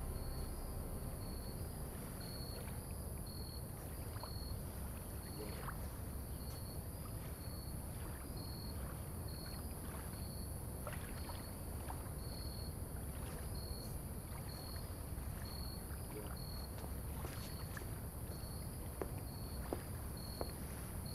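Steady background ambience: a low rumble under a high hiss, with a faint high chirp repeating at an even pace and a few light clicks.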